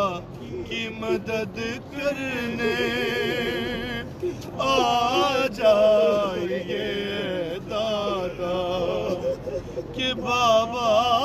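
A man's voice reciting an Urdu noha, a Shia mourning lament, unaccompanied, with long wavering held notes.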